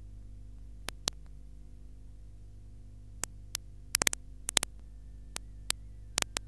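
Steady low electrical hum with irregular sharp clicks, a cluster of them around four seconds in: background noise of an analog video transfer.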